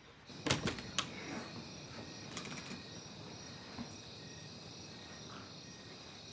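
Crickets chirping steadily in the night air. In the first second there are a few knocks and scuffs of a body crawling on a hard floor.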